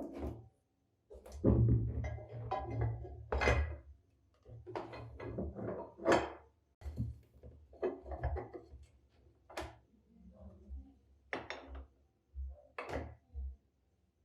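Irregular knocks and clunks of heavy cast-iron mill parts being handled and fitted together, some with a brief metallic ring, about a dozen strikes.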